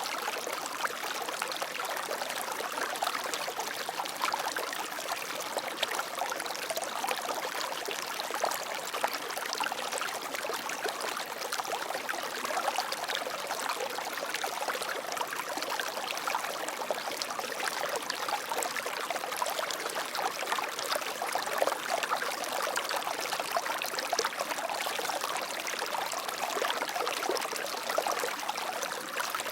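Flowing water, a steady babbling trickle with many small splashes and no deep rumble.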